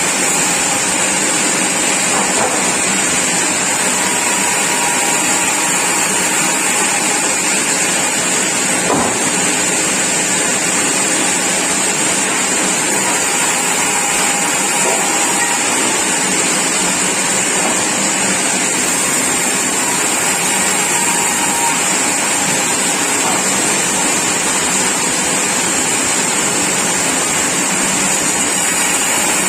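Sawmill machinery running steadily: one continuous, even mechanical noise with a strong high hiss and no breaks.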